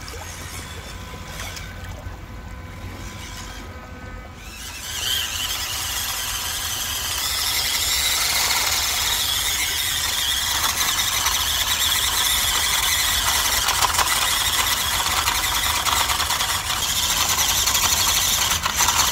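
WPL C24-1 RC crawler's little 180 brushed motor and gears whining at full throttle as its mud-coated tyres spin on a steep muddy bank. The whine comes in about four seconds in and grows louder, then holds. The tyres lack the grip, or the motor the power, to get up the bank.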